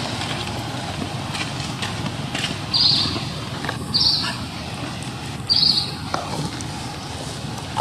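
Outdoor ambience: a steady low rumble, with three short high-pitched chirps spaced a second or more apart.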